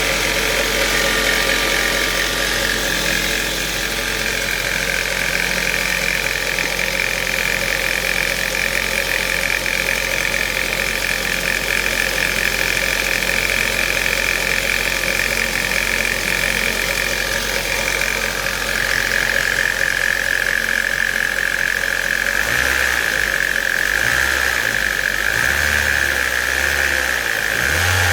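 Ford Mondeo 1.8 petrol engine idling with a steady high-pitched whine over it, the strange noise in question; the whine drops a little in pitch about two-thirds of the way through.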